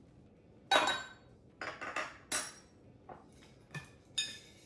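A metal utensil tapping and clinking against a small glass dish and a glass measuring cup while garlic is scraped into a dressing: a series of sharp clinks with short rings, the loudest about a second in and another ringing clink near the end.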